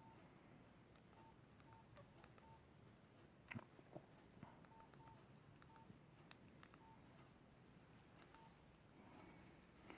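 Faint, short single-pitch keypad beeps from a Nokia 5130 XpressMusic mobile phone as its keys are pressed, about ten at uneven intervals, with a couple of sharper clicks near the middle.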